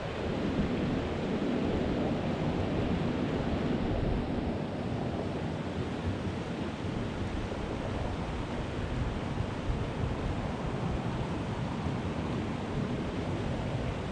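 Steady rush of a small mountain creek's current over a riffle, with wind buffeting the microphone.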